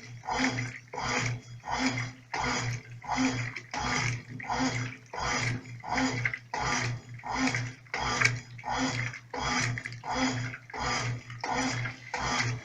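Brastemp Clean 5 kg top-loading washing machine agitating on its delicate setting: the agitator swings back and forth with a motor hum on each stroke, sloshing the water and clothes in a steady rhythm of about three strokes every two seconds.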